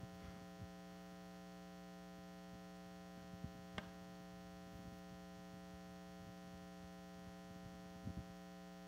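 Steady low electrical hum from the stage sound system, with a faint click about four seconds in and a few soft low thumps near the end.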